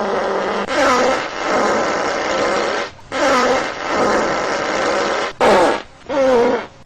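Fart sound effects: a few long farts with a wavering pitch, one after another, then two short ones near the end.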